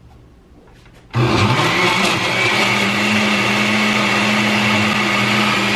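Countertop blender with a glass jar switching on about a second in, its motor quickly spinning up to speed and then running steadily as it blends a thick banana and peanut-butter protein shake.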